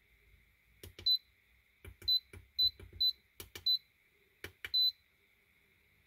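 Button presses on an Atorch DL24P electronic load: sharp clicks, six of them followed by short high beeps, as its discharge current is set and the load is switched on.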